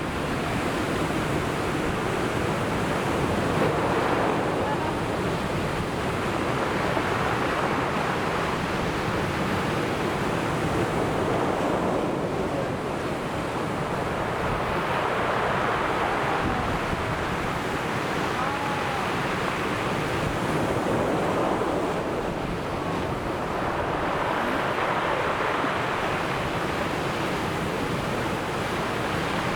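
Sea surf breaking on the shore, a steady rushing wash that swells and fades every several seconds as waves come in.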